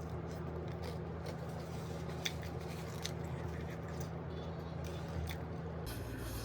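Chewing and wet mouth sounds of a person eating spicy noodles and chicken, with a few small sharp clicks, over a steady low hum that stops about six seconds in.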